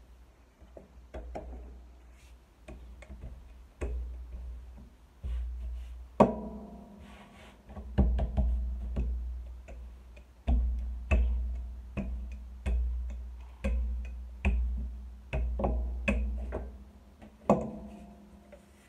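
Wooden rolling pin rolling out a thick lefse dough on a floured counter: a knock at the start of each stroke followed by a low rumble that fades, about one stroke a second. Two of the knocks are louder and ring briefly.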